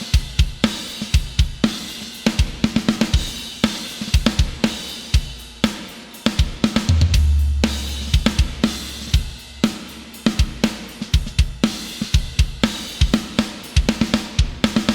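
Sampled acoustic drum kit from the EZdrummer 3 Death Metal EZX library playing a steady groove of kick, snare, hi-hat and cymbal hits, with a deep low boom held for about a second midway and a final hit ringing out at the end.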